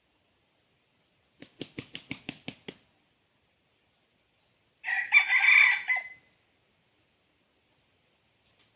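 A rooster flaps its wings in a quick run of about eight beats, then crows once for about a second and a half.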